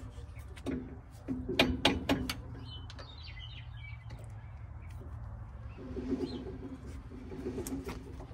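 A dove cooing in low, pulsed phrases near the start and again about six seconds in, with a few faint high chirps around three seconds. About a second and a half to two seconds in come several loud, sharp metallic clicks from the wrenches on the tractor's brake adjusting bolt.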